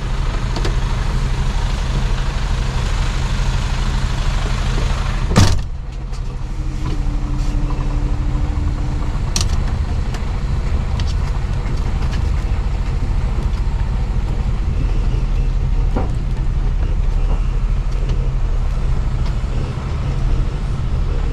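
Mercedes-Benz Actros truck's diesel engine running steadily while driving, with a loud knock about five seconds in, after which the hiss above the engine drops.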